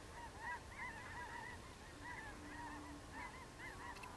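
A distant flock of geese honking, many short overlapping calls in a steady chorus.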